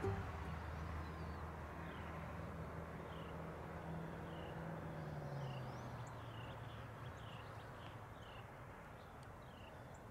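A bird calling over and over, a short falling chirp about once a second or a little faster, with a faint low drone underneath that drops in pitch about halfway through.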